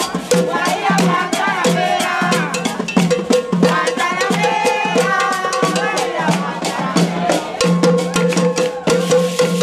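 Brazilian carnival samba percussion: hand drums and sharp wood-block-like clicks struck in a quick, dense rhythm, with voices singing and calling along.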